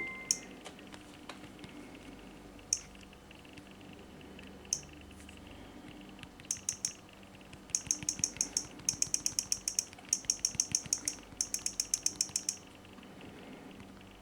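Sharp key clicks, like buttons being pressed: a few single clicks, then runs of quick clicks at about seven a second for several seconds before they stop.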